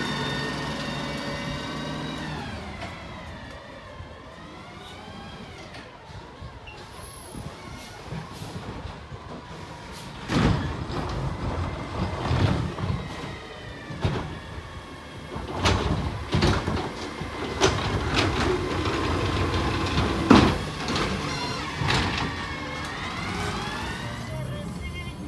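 McNeilus ZR garbage truck pulling away, its engine whine sliding up and down in pitch as it accelerates and shifts. From the middle on, a series of loud clunks and thumps comes every second or two.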